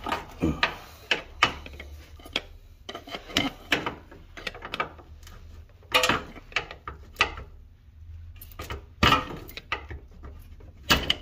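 A steel pry bar levering and scraping against a Honda Civic's front CV axle inner joint and the transmission case, making irregular metallic clicks and knocks as the axle is worked out of the transmission. The loudest knocks come about a second in, about six seconds in and about nine seconds in.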